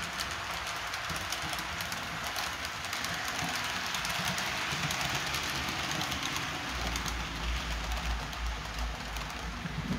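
Model railway class 39 steam locomotive and its coaches running on the layout's track: a steady rolling hiss with many fine clicks of the wheels on the rails. A low rumble joins in about two-thirds of the way through.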